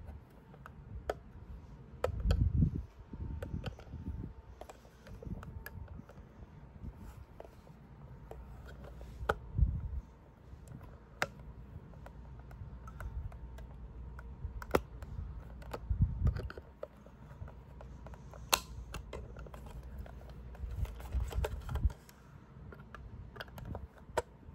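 A small screwdriver clicking and scraping against the plastic housing of a SpectrAlert Classic alarm as it is worked into the seam to pry the case open. Irregular sharp ticks, with a few soft low bumps from handling.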